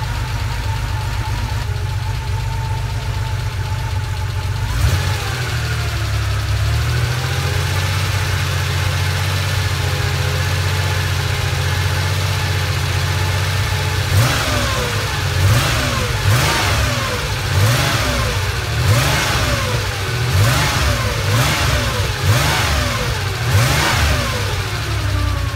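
1980 Porsche 911SC's air-cooled flat-six engine, freshly rebuilt and on its first run, idling steadily. From about halfway through it is revved in quick blips, rising and falling back roughly once a second.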